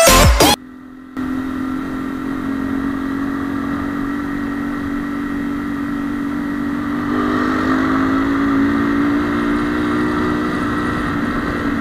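Honda CB150R's single-cylinder engine running steadily at cruising speed, heard from the bike itself; the engine note rises a little from about seven seconds in as it picks up speed.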